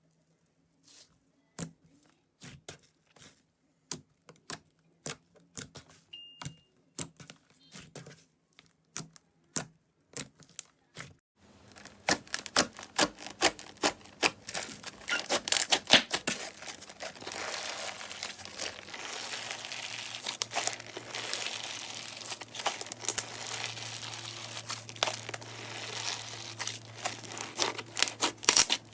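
Slime being handled close to the microphone: separate sharp clicks and pops for the first ten seconds or so, then from about twelve seconds in a dense, continuous crackling.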